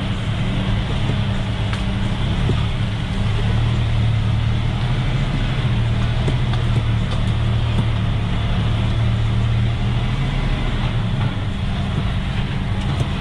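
Diesel engine of a loaded log truck running steadily with a low hum, a little heavier from about three seconds in until near the end.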